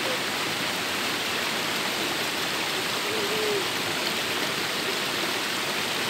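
Steady rush of creek water spilling over granite ledges into a rock pool.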